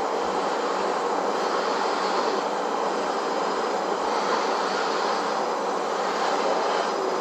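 A steady, even rushing noise with no separate sounds in it.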